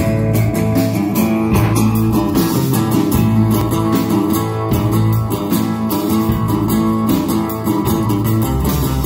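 Live band playing with strummed acoustic guitars and electric guitars over a steady rhythm. The music is instrumental, with no singing yet.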